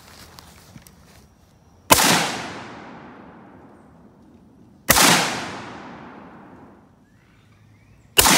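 M16-type rifle firing three single shots about three seconds apart, each sharp report followed by a long echoing tail.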